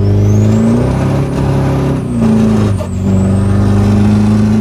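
Nissan Titan XD's turbodiesel V8 with an aftermarket single turbo pulling hard under full throttle: the engine note climbs, drops once partway through as the transmission shifts, then climbs again. A high turbo whistle rises and falls along with it.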